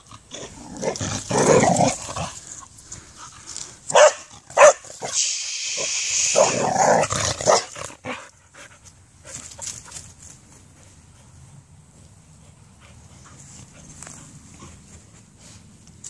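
A dog sniffing and snuffling right at the microphone, with two short, sharp sounds about four seconds in. It goes quiet from about eight seconds on.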